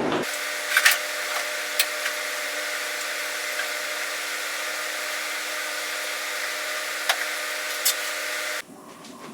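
A power tool running steadily with a few clicks, stopping abruptly near the end, during welding and grinding of sheet-metal rust-repair patches on a truck cab.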